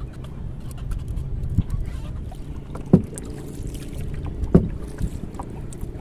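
Small fishing boat on the sea: steady water and wind noise around the hull, with two hollow knocks on the boat about three and four and a half seconds in.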